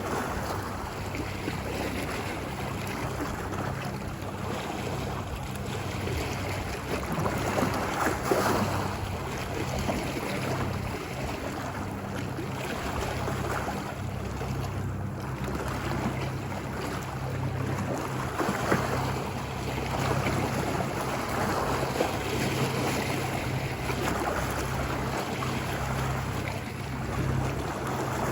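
Ocean waves washing onto a beach, each surge swelling and fading every few seconds, over a steady low rumble.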